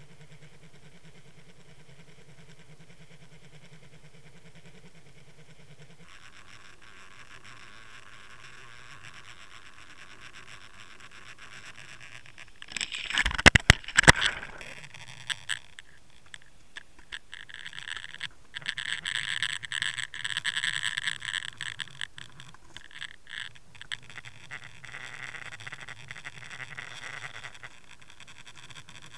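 A Water Wolf underwater camera's housing hitting and dragging on the lake bottom while being trolled: a burst of loud knocks about halfway through, then stretches of scraping and rubbing. Before the hits, a steady low hum carries through the water.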